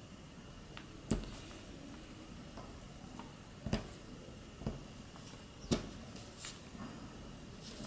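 Several short, sharp clicks and taps at irregular spacing over faint room noise, from the small metal part of a scuba regulator first stage being handled as rubber O-rings are fitted onto it by hand.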